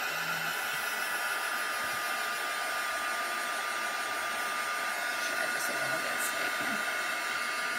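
Hand-held hair dryer running steadily, blowing air over wet paint to dry it: an even rush of air with a steady whine.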